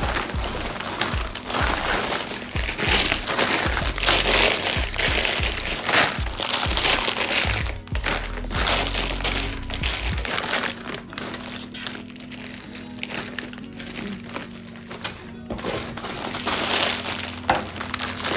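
Packaging crinkling and rustling as a LEGO set is unboxed, loudest in the first half, over background music.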